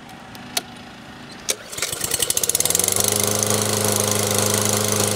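Briggs & Stratton push-mower engine being pull-started with a freshly replaced spark plug: two sharp clicks, then about two seconds in it catches, speeds up and settles into a steady run, showing the no-start fault has been cured.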